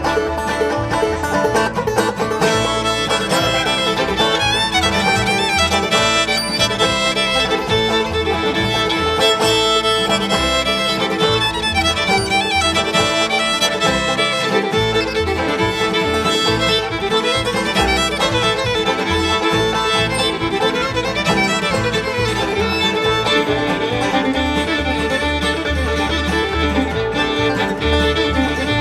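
Traditional bluegrass band playing a tune, with fiddle and five-string banjo to the fore over guitar backing.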